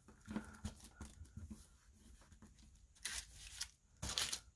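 Faint rubbing and tapping of fingertips pressing a clear acrylic stamp down onto a cardstock card. A few short soft rustles come around three and four seconds in as the stamp is lifted off the paper.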